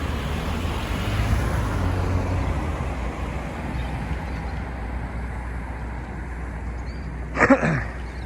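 Steady road traffic noise, swelling as a vehicle passes a second or two in. Near the end, a brief falling-pitched vocal sound is the loudest moment.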